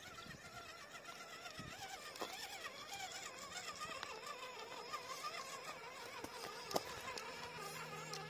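Electric motor and gearbox of an RC scale crawler on a Carisma Coyote chassis whining as it crawls over rocky ground, the pitch wavering with the throttle. A few sharp clicks sound over it, the loudest late on.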